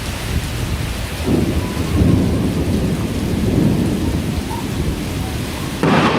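Heavy tropical downpour with rolling thunder: a deep rumble builds about a second in and rolls on for several seconds over the steady rain, and a fresh, sudden peal breaks in just before the end.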